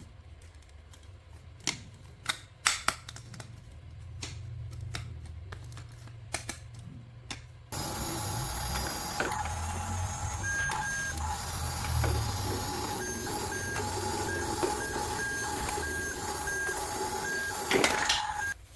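Scattered sharp clicks and taps of plastic toy parts being handled. About eight seconds in, a battery-powered toy switches on: a small motor's steady whir with constant electronic tones and a beep that pulses on and off, cutting off just before the end.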